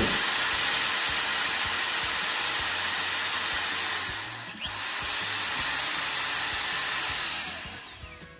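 Corded electric drill spinning a paddle mixer through a bucket of honey-and-cherry mead must, stirring it up. The drill runs steadily, eases off briefly a little past halfway, picks up again and winds down near the end.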